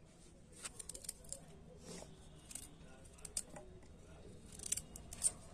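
Knife cutting a piece of fresh ginger into chunks by hand: faint, irregular clicks and taps of the blade.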